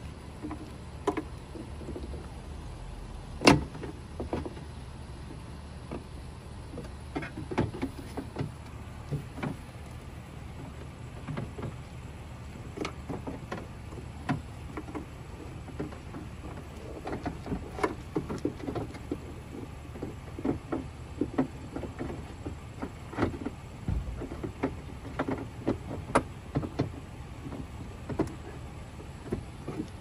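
Scattered clicks, taps and rustles of a Tesla Model S door handle assembly and its wiring being handled and worked into the door cavity. One sharp click about three and a half seconds in, and the clicks come thicker in the second half, over a steady low background rumble.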